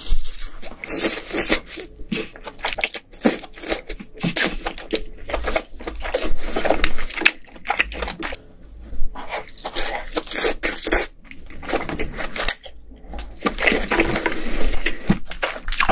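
Close-miked eating of king crab meat: wet chewing and smacking, with irregular crackling and tearing as the crab is pulled apart by gloved hands.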